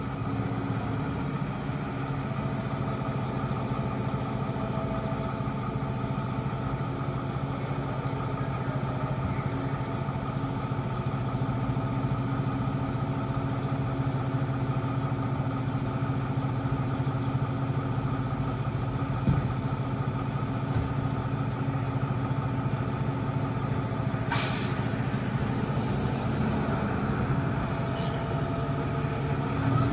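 2020 Pierce Arrow XT fire truck's diesel engine idling steadily in the station bay after a cold start, with a sharp burst of air hiss about 24 seconds in as the air brakes release before it pulls out.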